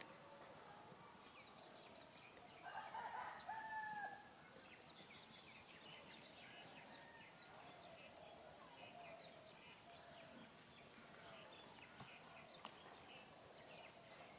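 A rooster crowing once, faintly, about three seconds in, over scattered small bird chirps.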